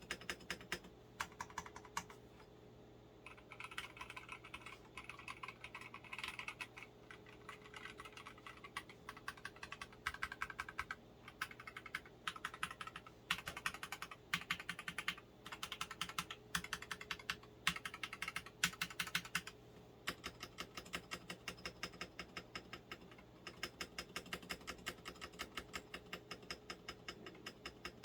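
Continuous typing on a stock, unmodified NextTime75 mechanical keyboard with NK Silk Yellow linear switches: rapid keystroke clicks in runs with short pauses, busiest around the middle.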